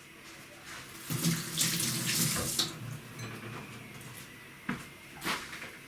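Water running into a kitchen sink for a second or two, then two short knocks near the end.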